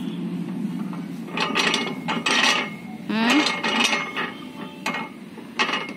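Metal pivots of an outdoor-gym exercise machine creaking and grinding as a child pulls its bar back and forth, a squeaky rasp with each stroke about once a second.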